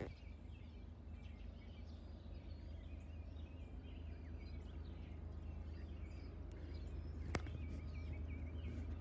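Steady low rumble of a distant approaching freight train, slowly growing louder, under songbirds chirping. A single sharp click comes about seven seconds in.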